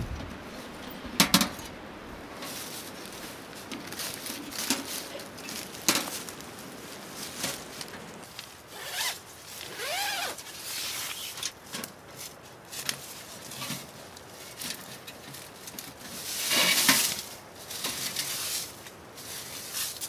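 Zipper on camping gear being pulled in a series of short and longer strokes, with the longest pull around seventeen seconds in, among rustling and handling noise. A sharp click about a second in is the loudest sound.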